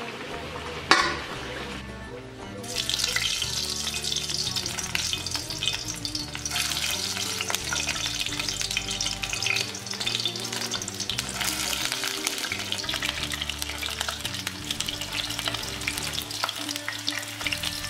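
Whole quail sizzling as they brown in hot oil in a frying pan, the sizzle starting about three seconds in and then holding steady.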